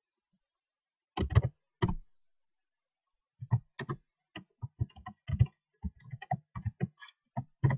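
Computer keyboard typing: a few loud keystrokes about a second in, then a quick, uneven run of keystrokes from about three and a half seconds in.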